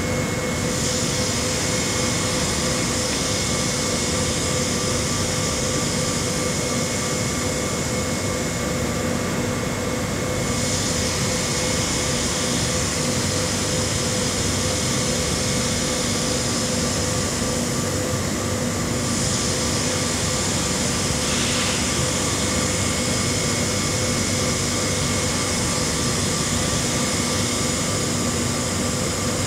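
Steady mechanical drone of running machinery, a constant hiss with several fixed whining tones. The upper hiss shifts in level about ten and nineteen seconds in.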